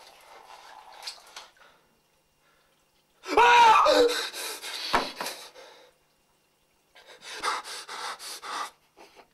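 A man gasps loudly for air, then pants in a run of short, heavy breaths.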